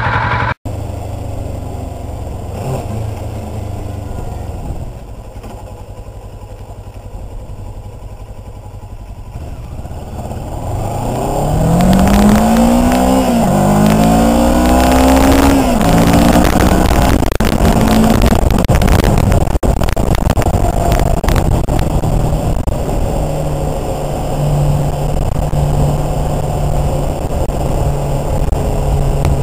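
Kawasaki Ninja 650R's parallel-twin engine breathing through a homemade free-flow glass-pack muffler, with no baffles. It runs low and steady at first, then about ten seconds in it accelerates hard, its pitch rising and dropping back at several upshifts, and settles into steady cruising with wind rushing over the microphone.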